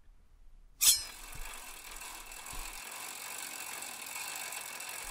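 Bicycle drivetrain spinning: a fast, even ratcheting of the freewheel pawls and chain. It starts with a sharp click about a second in and then runs steadily.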